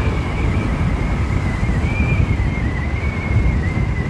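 Wind buffeting the microphone during a ride, with dense low rumbling road noise and a thin steady whine that wavers slightly in pitch.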